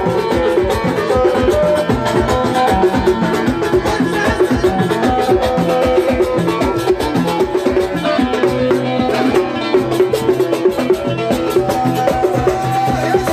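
Tagroupit, the Souss Amazigh popular music, played by a band: plucked string instruments over percussion keeping a steady, busy beat.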